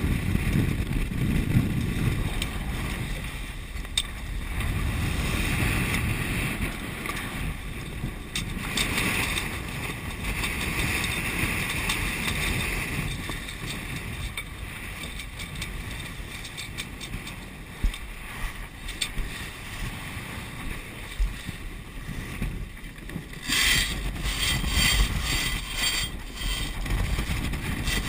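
Wind buffeting the microphone and sea water rushing past the hull of an S&S34 sailing yacht driving through rough seas. A few sharp knocks come near the end.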